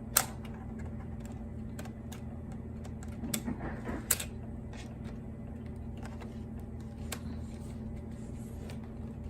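Sharp plastic clicks from handling a laptop's case, a few spread out with a short cluster of small knocks and rustling about three and a half seconds in, over a steady low hum.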